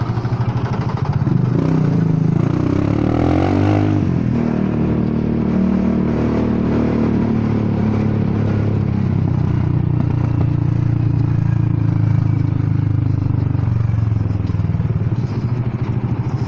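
Honda Forza 300 scooter's single-cylinder engine running loudly through an exhaust the rider calls broken. The revs rise about a second in, ease off over the next few seconds, then hold steady.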